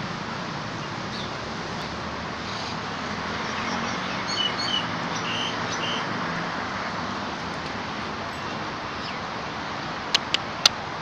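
Steady hum of road traffic, with a few faint high chirps in the middle and three sharp clicks in quick succession near the end.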